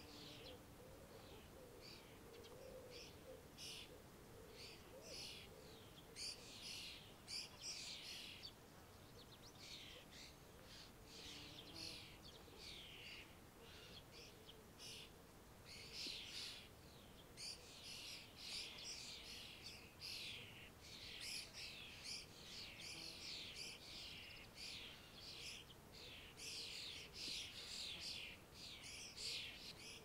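Faint birdsong: several small birds chirping in many short, high, quick phrases that overlap, busier in the second half.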